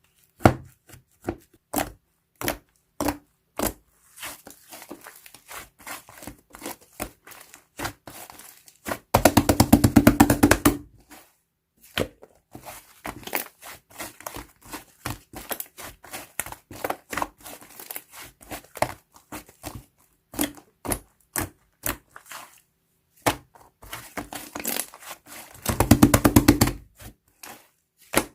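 Slime being pressed and poked by hand, making scattered sharp clicks and pops. Twice it breaks into a run of rapid crackling that lasts a second or two.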